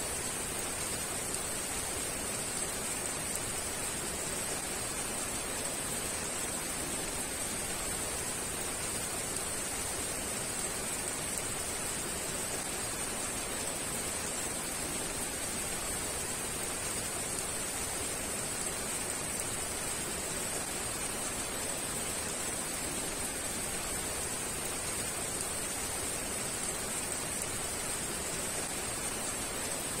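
Heavy rain falling steadily: an even, unbroken hiss with no single drops or other sounds standing out.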